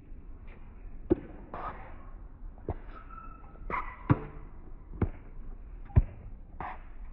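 Tennis ball being struck by rackets and bouncing on a hard court during a rally: a string of sharp pops about a second apart, the loudest near the end.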